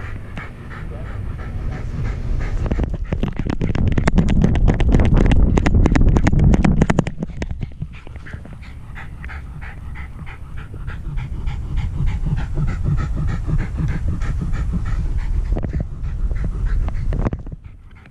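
Wire-haired fox terrier panting right at a harness-mounted action camera. Between about three and seven seconds in, a fast run of knocks and low rumbling, the loudest part, drowns out the panting.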